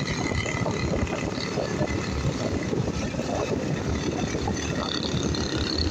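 Motorcycle riding along a road, with wind rushing and buffeting over the microphone and the bike's running drowned beneath it.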